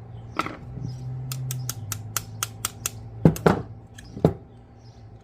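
Sharp little metal clicks, about five a second, then three louder knocks, as the pivot screw is worked back into a pair of steel shoe tack nippers. A steady low hum runs underneath.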